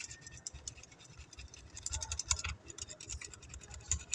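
A metal utensil stirring a Tang, sugar and water mix in a plastic bowl, scraping and clicking against the bowl in quick, irregular strokes.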